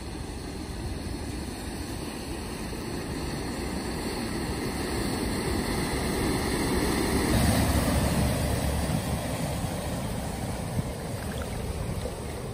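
Mercedes Sprinter van driving through floodwater across a road, its engine running under the sound of the bow wave surging and splashing round the wheels. It grows louder as it approaches, passes about seven to eight seconds in, then fades as it moves away.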